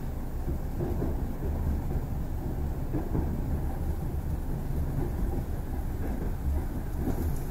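ED4M electric multiple unit under way, heard from inside the passenger car: a steady low rumble from the running gear, with irregular light knocks from the wheels on the track.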